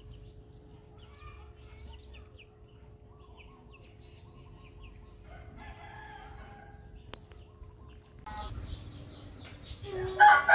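A rooster crows loudly near the end. Before that there are faint bird chirps and a distant, fainter crow.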